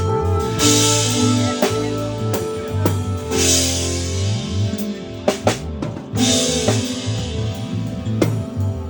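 A band playing a groove: a drum kit with kick, snare and rim hits and a cymbal crash about every three seconds, over held bass notes.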